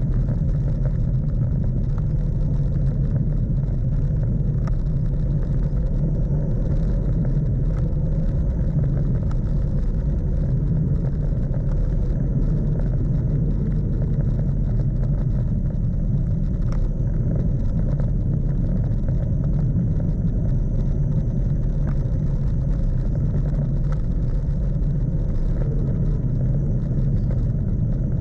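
Steady wind rush buffeting the camera microphone, with road noise, as a Brompton folding bicycle coasts fast down a paved road.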